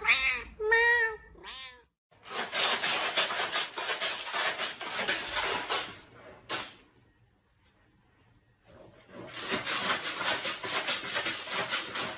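A cat meows a few short times, each cry rising and falling in pitch, in the first two seconds. Then a cat digs in a litter box of pellet litter: a scratchy shuffling of pellets that stops for a couple of seconds midway and starts again.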